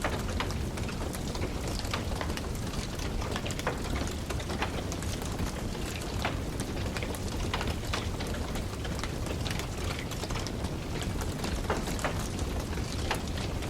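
Wood fire in a fireplace crackling, with frequent irregular sharp pops and snaps over a steady low rumble of flames.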